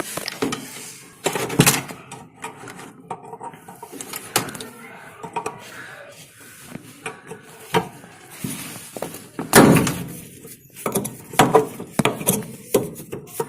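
Irregular knocks, clicks and clatter of hand tools against a washing machine's body while it is being dismantled.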